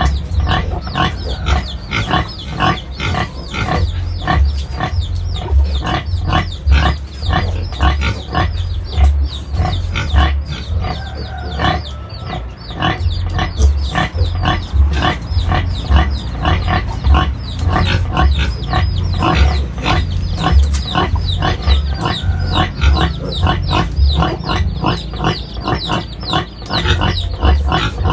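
A litter of piglets calling continuously, a dense stream of short, high, downward-falling squeals and grunts, many a second, over a low rumble.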